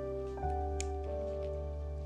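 Background music: soft sustained keyboard chords over a steady bass, changing chord about half a second in.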